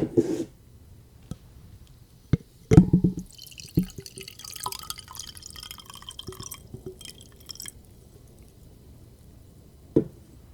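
A drink is poured into a glass for about four seconds, starting a few seconds in. Knocks and clinks of the bottle and glass being handled come before the pour, and there is one more knock near the end.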